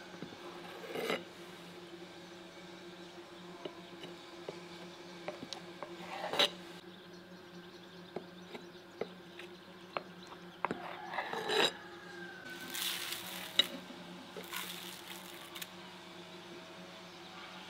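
A large kitchen knife cutting through a round of fresh soft cheese, knocking and scraping on the clay plate beneath it in scattered taps and clinks, with a few short scrapes; a low steady hum runs underneath.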